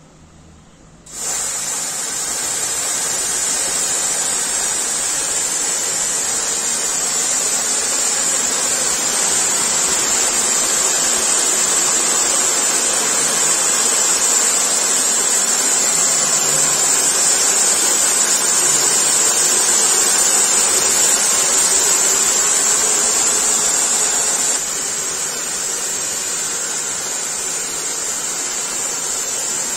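Touchless automatic car wash spraying high-pressure water and foam jets onto a car: a loud, steady hiss of spray that starts suddenly about a second in and drops somewhat in level near the end.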